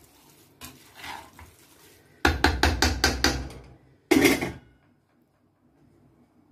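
A metal spoon knocking and scraping against a large metal pan while mixing rice-and-herb mahshi stuffing. A quick run of about seven knocks comes a little past two seconds in, then one harder knock about a second later.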